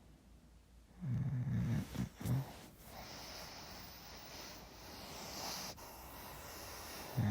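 A sleeping person snoring close to the microphone: a low snore with a couple of breaks about a second in, a long breathy exhale through the middle, and another short snore at the very end.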